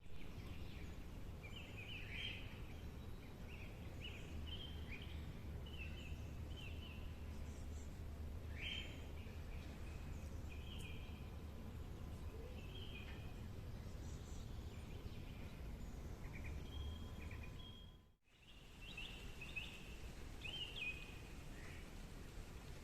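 Several birds chirping and calling in short, repeated phrases over a steady low background rumble. The sound cuts out briefly about eighteen seconds in.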